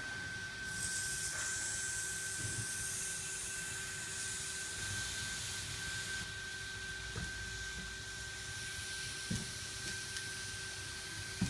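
Air-powered sealant gun hissing as it lays a bead of Teroson MS939 adhesive. The hiss starts about a second in and stops about six seconds in. A faint steady hum runs underneath, with a few small knocks in the second half.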